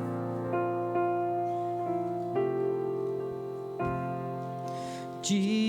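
Piano or keyboard playing a slow hymn introduction in held chords that change every second or so. Singing voices come in near the end.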